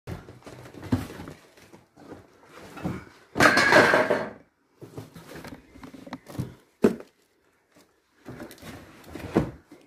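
Scattered knocks and thuds with rustling, from someone moving about and handling things among clutter around a stored boat. A louder, noisy rustle lasting about a second comes about three and a half seconds in.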